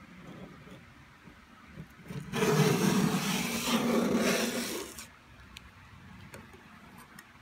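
A 2-inch flexible steel putty knife scraping chemically softened paint and lacquer off a wooden panel: one long push stroke starting about two seconds in and lasting about two and a half seconds. Faint ticks come before and after it.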